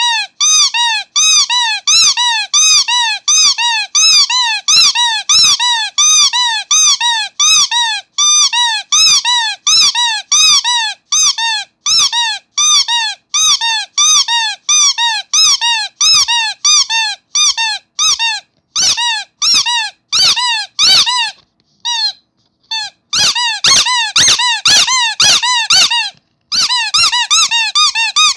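Rubber starfish squeaky toy squeezed over and over, about two squeaks a second, each squeak rising and then falling in pitch, with a short break about three-quarters of the way through.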